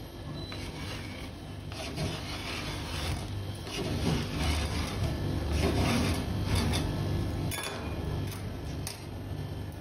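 Metal spatula scraping a sheet of frozen Oreo ice cream across a steel cold pan to roll it up, in a series of scraping strokes that are loudest in the middle.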